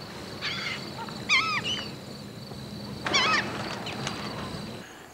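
Laughing gulls calling: a short call, then a loud run of three or four quick rising-and-falling notes, and another loud burst about three seconds in.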